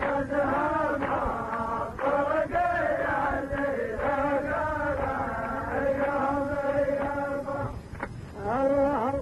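A man chanting Arabic Nabati poetry in the long, drawn-out melody of a mawwal, holding and bending each vowel at length. There is a brief pause near the end before he starts a new phrase.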